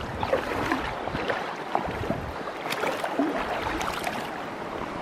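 River water rushing and lapping, with irregular small splashes as a hooked trout thrashes at the surface.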